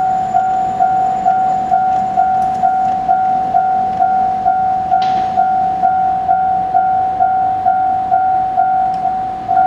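Japanese railway level crossing's electronic warning bell ringing steadily, one clear tone struck about twice a second: the signal that a train is approaching and the barriers are down.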